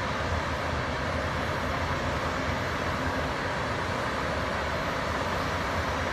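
Komatsu crawler bulldozers at work, their diesel engines running steadily under load as the blades push wet dirt: a continuous low drone with an even mechanical hiss over it.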